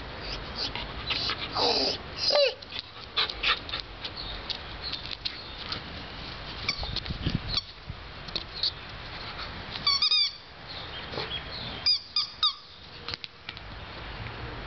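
Rubber squeaky ball squeaking as a Samoyed mouths and paws at it: a run of quick high squeaks about two-thirds of the way through and another a couple of seconds later, among many small clicks and knocks. Wind rumbles on the microphone throughout.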